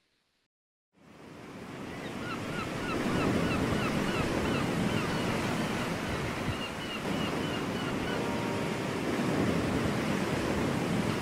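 Ocean surf washing onto a beach, fading in after about a second of silence and holding steady, with a run of quick high chirps over it for several seconds.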